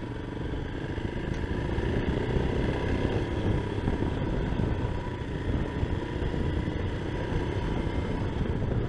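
Motorcycle engine running steadily while riding along, with wind and road rumble on the microphone.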